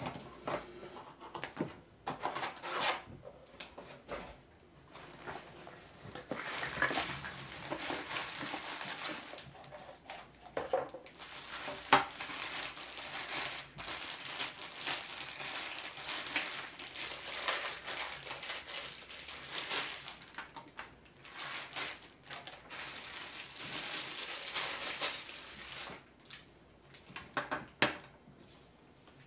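Plastic packaging bag crinkling and rustling in irregular spells, along with paper and cardboard packing being handled, as a laptop's power cord is unwrapped. There are a few light knocks.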